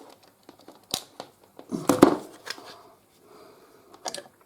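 Hands handling a camcorder and its charging lead: a few sharp plastic clicks and knocks, with a louder bump and rustle about two seconds in.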